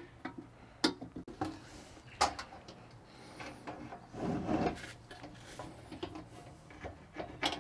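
Sheet-metal case of a three-burner camp stove being handled: a few light clicks and knocks, then a longer rattling clatter about four seconds in as the stove is turned upright and its lid swung open, and a couple more clicks near the end.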